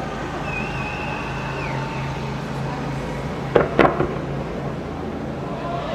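Distant fireworks: two sharp bangs in quick succession about three and a half seconds in, over a steady low background hum. A thin high whistle holds in the first two seconds, then falls away.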